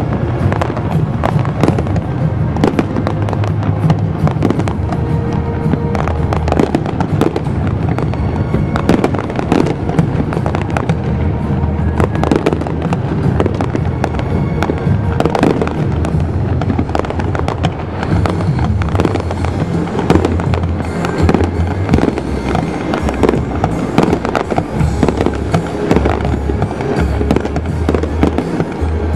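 Fireworks display: a dense, unbroken run of bangs and crackling from bursting shells and spark effects, over a steady low rumble.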